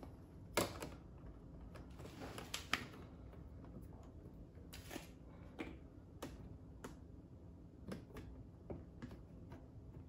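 Scattered light plastic clicks and taps as a black plastic headlight bezel is handled and pressed into the opening in a golf cart's plastic front cowl. The sharpest click comes about half a second in, with a small cluster around two and a half seconds.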